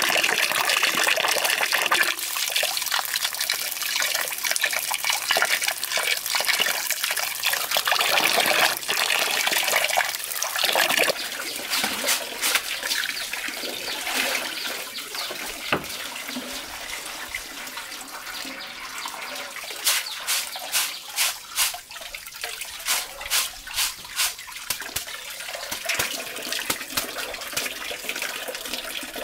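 Tap water running and splashing into a metal basin while sticky rice is swished by hand in a woven bamboo basket. After about 11 s the water sound drops to a quieter steady trickle, and from about 20 s in come a run of quick splashes and drips as the rice is rinsed under the tap.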